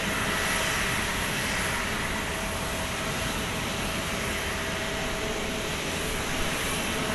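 Jet airliner engines running steadily: an even rush of noise with a thin, steady high whine over it.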